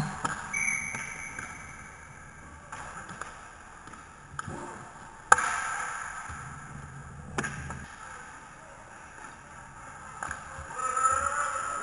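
Inline hockey play at the net: sharp clacks of sticks and puck striking, the loudest about five seconds in and another about two seconds later. A whistle sounds for about two seconds just after the start, and players call out near the end.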